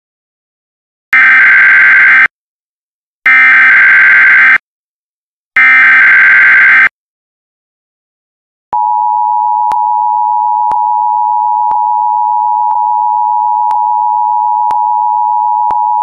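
Emergency Alert System header for a Civil Danger Warning: three bursts of SAME digital data tones, a harsh screech about a second each, then after a short pause the two-tone EAS attention signal held steady for about seven seconds, with faint clicks about once a second.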